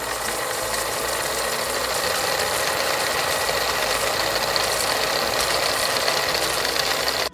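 Steady, dense rattling noise filling the quiz's guessing pause as a sound effect, cutting off suddenly at the end.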